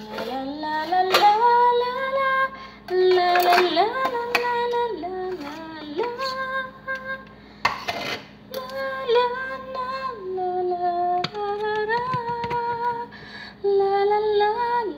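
A woman singing a slow love song unaccompanied, holding long notes and sliding between pitches.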